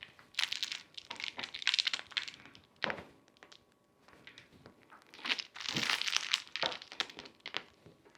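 Crinkling and rustling of wrapping material being handled in two spells, with a few light knocks in between.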